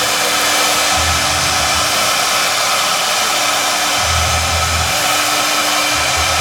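Large CNC foam router running: a loud, steady, hissing spindle noise, with a low hum that comes and goes for a second at a time.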